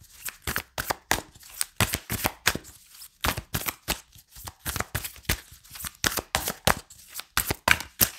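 A deck of oracle cards being shuffled hand to hand: quick, irregular snaps and slaps of cards against each other, a few each second.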